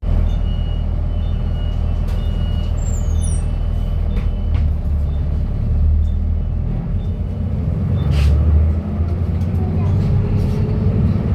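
Cummins diesel engine of a King Long KL6112U1 city bus with a five-speed manual gearbox, running under way and rising to high revs partway through.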